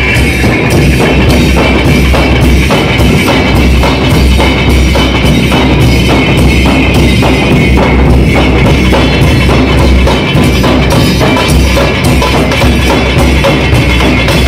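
Loud music with a steady drum beat of about three strokes a second over a constant deep bass.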